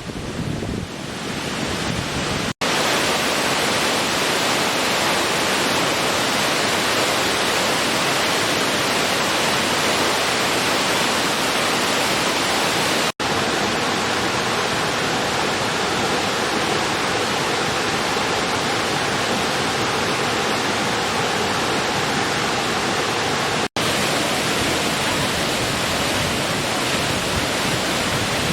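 Waterfall pouring steadily: an even, dense rushing of falling water. The sound drops out for an instant three times, at joins between recordings.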